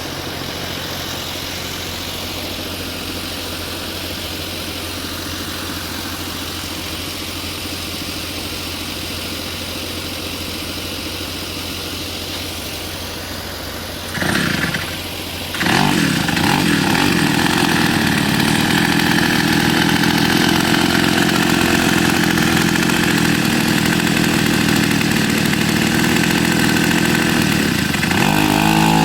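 Two-stroke Ural chainsaw engine driving a homemade mini vehicle: idling steadily, revving briefly about halfway through, then running louder at higher revs for the rest.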